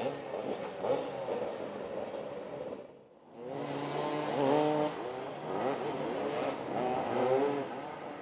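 Several motoball motorcycles running and revving together, their engine pitch rising and falling over and over. The sound dips briefly about three seconds in, then comes back louder.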